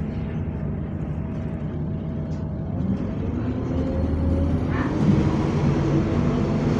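City bus engine heard from inside the passenger saloon, running steadily at a stop, then revving harder as the bus pulls away about four to five seconds in, with a faint high whine rising as it gathers speed.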